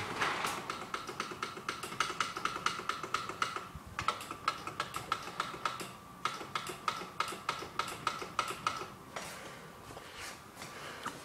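Rapid, irregular light clicking, several clicks a second, like tapping on a keyboard, thinning out after about nine seconds.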